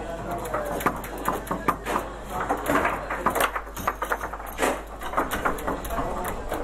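Table football (foosball) in play: quick, irregular clacks and knocks as the ball is struck and passed by the plastic figures on the rods.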